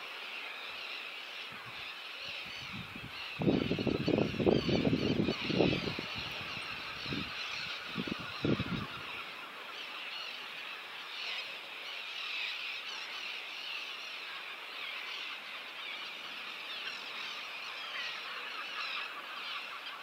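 A cormorant colony calling: a dense, continuous chorus of many overlapping calls. Wind buffets the microphone with low rumbles for a few seconds near the start.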